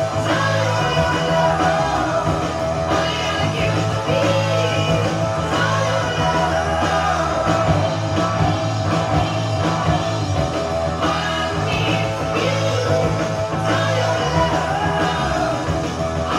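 A rock song with singing and guitar playing from a vinyl record on a turntable, heard through an Akai AM-U3 amplifier and Pioneer CS-757 speakers.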